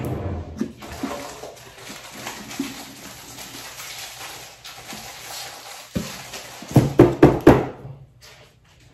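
A spoon scraping and scooping wet pulp and seeds out of a hollowed pumpkin. Near the end there is a quick run of about five loud knocks.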